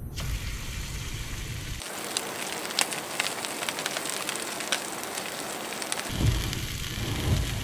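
Wagyu ribeye steak searing in hot olive oil in a cast iron pan: an even sizzle with many small crackles and spits.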